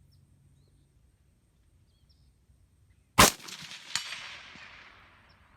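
A single short-barreled rifle shot, very loud and sharp, followed about three-quarters of a second later by a second, quieter crack and a long fading echo.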